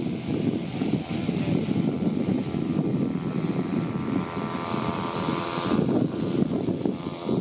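Lazer 25cc petrol engine and propeller of a scratch-built 82-inch de Havilland Chipmunk RC model plane, buzzing steadily as it flies past overhead.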